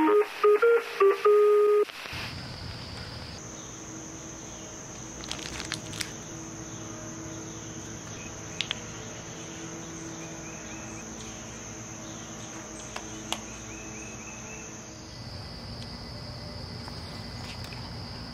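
A short electronic jingle of stepped tones ends about two seconds in; then insects chirr in a steady high drone whose pitch drops a little near the end, with a few faint clicks.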